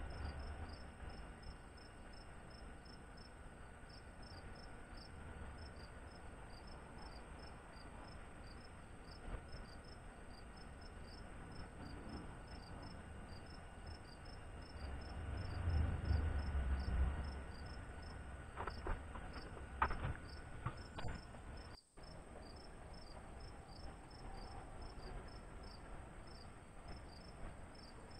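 Insects chirping in a steady, even rhythm of high pulses. A low rumble swells about halfway through, followed by a few sharp clicks.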